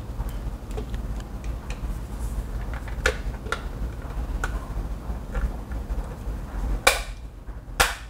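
Plastic wall light-switch cover being pried off with a flat-head screwdriver: scattered small clicks and scrapes of the blade against the plastic, with two sharp snaps near the end as the cover comes loose.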